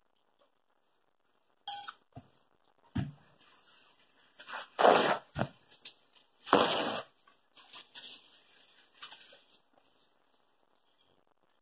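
Scattered handling noises at a dinner plate: knocks and clinks of a fork and plate, and the rustle of a paper napkin, loudest about halfway through.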